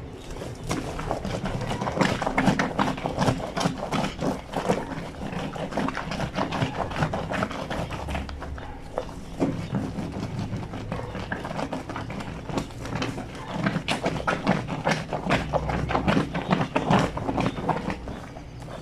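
Wet fleece sheets scrubbed by hand against a granite washboard sink: rapid, uneven wet rubbing strokes with short pauses.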